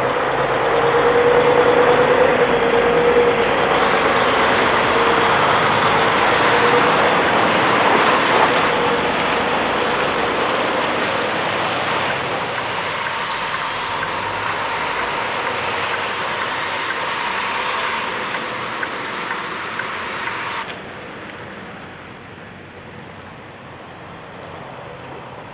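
Semi-truck driving past, with a steady diesel engine and tyre noise that is loudest in the first several seconds and fades as it pulls away.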